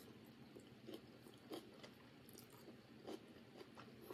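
Faint chewing of a mouthful of egg-white omelet, with soft, irregular mouth clicks.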